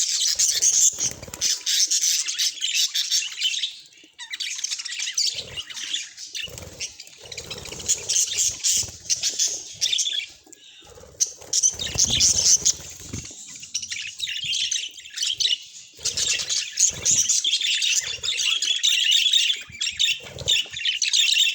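Budgerigars chattering and warbling: a dense, rapid stream of high chirps and squawks, with short lulls about four and ten seconds in.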